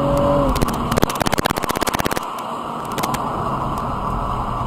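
Road and engine noise of a car being driven, with an engine tone falling in pitch in the first half second and a rapid rattling from about half a second to two seconds in.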